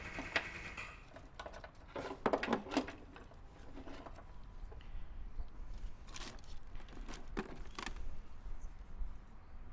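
Hands working with a wiring harness and small hand tools: scattered short clicks and clatter, with a cluster of sharp knocks about two seconds in and a few more near the end.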